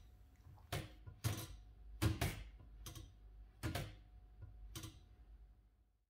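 Shift keys of an Olivetti M1 and an Olivetti M20 typewriter pressed and released, the case-shift mechanisms clunking as they lift and drop: on the M20 the typebar basket moves, on the M1 the typebar carriage. About seven separate clunks at uneven intervals, each with a short metallic ring.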